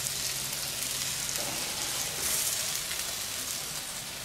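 Meat frying in a hot pan: a steady sizzle that swells briefly a little past halfway through.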